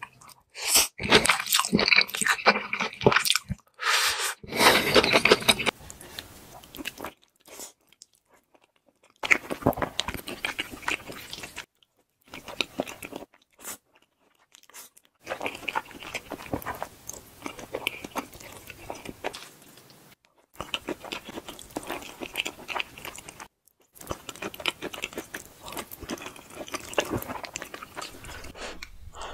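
Close-miked eating sounds: noodles of spicy cheese-corn fire noodles being slurped and chewed. The chewing stops and starts several times, with short silent gaps between the stretches.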